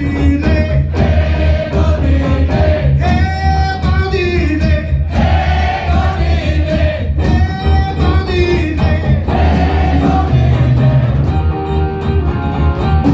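Live rock band playing loudly, with electric guitar, bass, drums and organ-like keyboard under heavy bass, heard from within the audience. Several voices sing together, the crowd singing along with the band.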